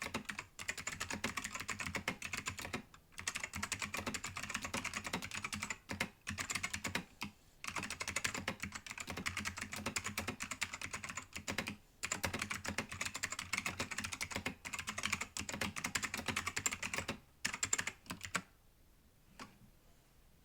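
Fast, continuous typing on a Matias Mini Tactile Pro mechanical keyboard, its Matias ALPS-style key switches clacking in quick runs with short pauses every few seconds. The typing stops about eighteen seconds in, and one last key press comes about a second later.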